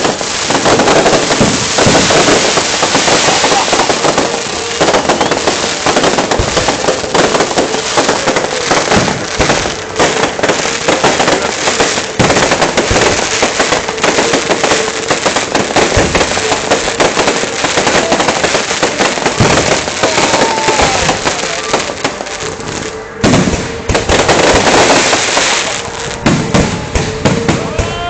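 Fireworks display: a dense, continuous barrage of bangs and crackling shells, with a short whistling glide about twenty seconds in and another at the end.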